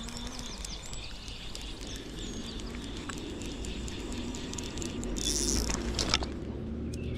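Wind rumbling on the microphone with a few birds chirping while a hooked trout is played on a fly rod. About five seconds in the fly reel's ratchet buzzes briefly, then there is a sharp click.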